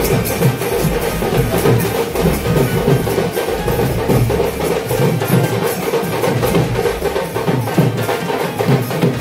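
Percussion-heavy music: fast, dense drumming over a steady held note.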